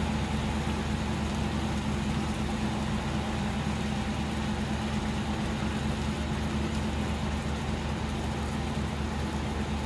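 Steady low machine hum, unchanging throughout, with the sizzle of chicken frying in an iron kadai over a coal fire beneath it.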